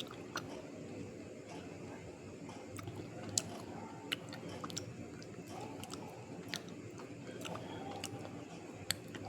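A person biting and chewing something brittle and crunchy, with a sharp crunch every second or so over a steady low background.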